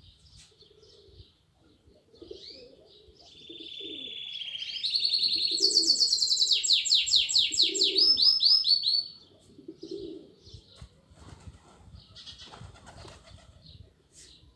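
Small cage bird singing a long song about three seconds in: a steady trill, then a loud run of fast, repeated downward-sweeping notes lasting about four seconds, followed by softer chirps. Low soft cooing of doves repeats every second or two underneath.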